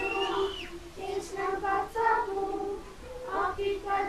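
Children singing a song, with held notes in a high, child-like voice range.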